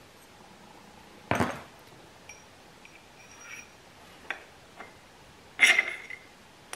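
Metal parts of a snowmobile suspension shock clinking and scraping as it is handled and its steel sleeve is slid out of the mounting eye: a sharp clink about a second in, a few light ticks, then a longer scraping rattle near the end.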